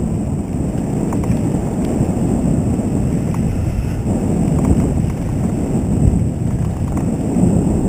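Steady low rumble of a mountain bike riding fast over a rough dirt trail, with wind buffeting the mounted camera's microphone and a few faint clicks and rattles from the bike.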